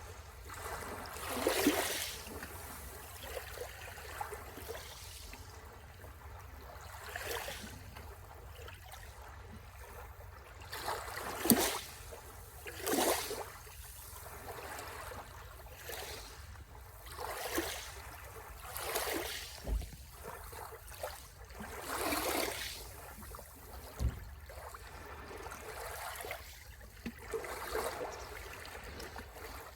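Small sea waves lapping and splashing on the shore, a short wash every second or two, some louder than others.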